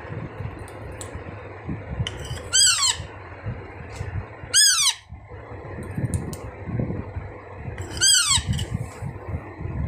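Alexandrine parakeet chick giving three short, harsh food-begging squawks, each falling in pitch, spaced a couple of seconds apart.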